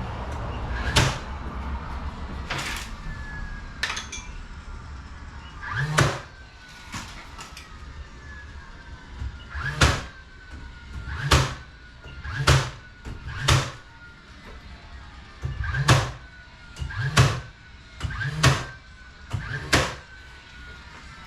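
A series of about a dozen sharp knocks, irregularly spaced a second or two apart, some with a short low thump, from garage door installation work.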